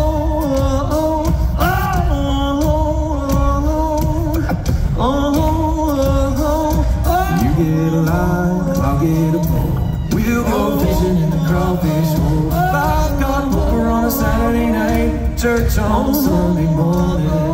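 Five-man all-male a cappella group singing live through the arena PA: close vocal harmonies over a steady low sung bass line.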